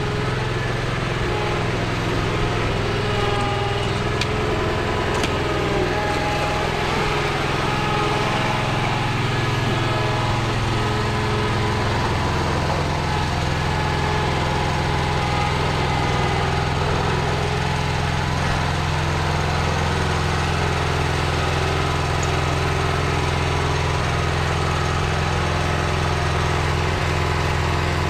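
An engine running steadily with a low, even hum, its pitch shifting slightly about twelve seconds in.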